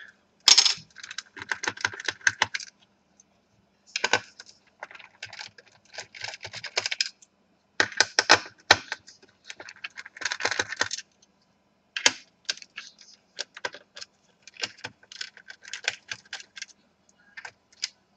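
Small screws being undone and lifted out of a laptop's plastic bottom case: bursts of quick, sharp clicks and light metallic rattles, with short pauses between them.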